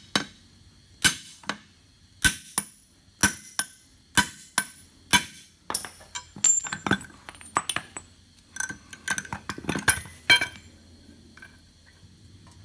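Hammer blows on a steel axle shaft yoke, driving a U-joint bearing cap out over a socket on a steel anvil block: sharp ringing metal strikes about one a second for the first six seconds. Then lighter metal clinks, and another quick run of blows a little before ten seconds.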